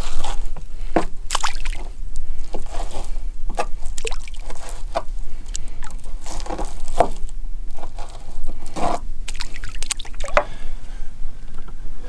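Fillet knife cutting a raw striped bass into chunks for chum: wet squishing and scraping, with many short, sharp, irregular clicks and smacks.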